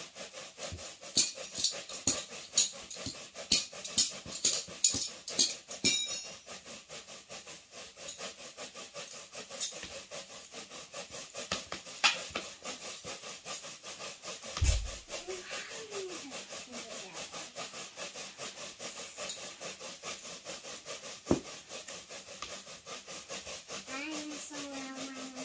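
Latex balloon being rubbed quickly back and forth against hair to build up static charge: a fast, rhythmic scratchy rubbing, with a string of loud sharp clicks in the first few seconds and one dull thump about halfway through.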